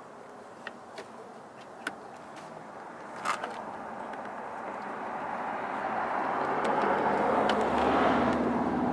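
A road vehicle approaching: its engine and tyre noise builds steadily over several seconds and stays loud near the end, with a few light clicks before it.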